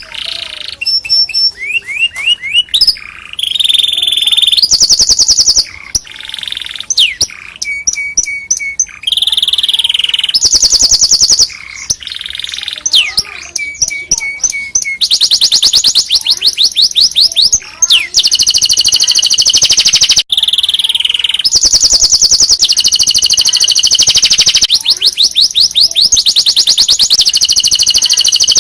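Domestic canary singing a long, loud song of very fast trills and rolls, broken by short sliding whistles and chirps, with a few brief pauses between phrases.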